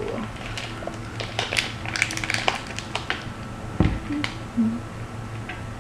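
A plastic snack-bar wrapper crinkling and tearing as it is opened by hand, in a run of irregular crackles. There is a dull thump about two-thirds of the way in.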